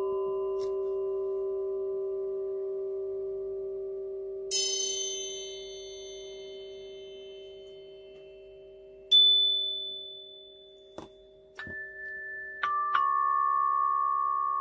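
Meditation music of struck bell-like tones, each ringing on with a long, slowly fading sustain over a steady low tone. A bright strike comes about four seconds in and another about nine seconds in, and a few higher tones enter near the end.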